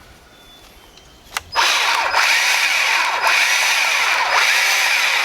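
Bauer 20V cordless battery saw running free in the air, not cutting. The trigger is pulled about a second and a half in, and the motor and chain then run at a steady whine, dipping briefly about once a second.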